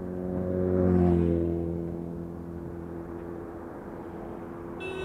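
A motor vehicle passing close by on the road. Its engine hum swells to a peak about a second in, drops in pitch as it goes past, then fades into steady road and wind noise. A brief high squeal just before the end.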